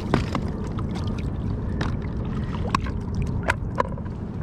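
Steady low rumble of water and wind around a fishing kayak at sea, with a few short sharp knocks scattered through.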